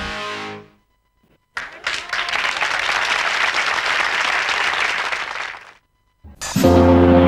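Audience applause that starts suddenly after a brief silence and stops about four seconds later. Music fades out at the start, and new music with a steady low chord comes in near the end.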